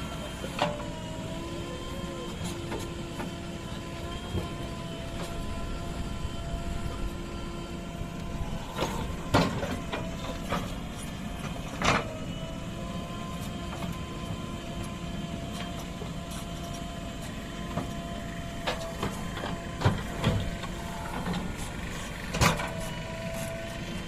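JCB 3DX backhoe loader's diesel engine running steadily under hydraulic load as the backhoe arm digs, with a held whine over the drone. Several sharp clanks come from the bucket and arm, two close together a little after the middle and one near the end.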